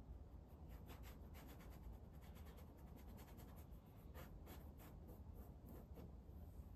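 Faint, quick scratching strokes of a paintbrush laying oil paint onto a gesso-primed stretched canvas, coming in irregular runs of short strokes.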